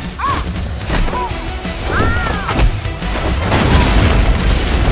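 Dramatic fight score with cartoon impact effects: booms and crashing rock, and several short rising-and-falling cries. The loudest stretch, a big crash with rumbling debris, comes in the second half.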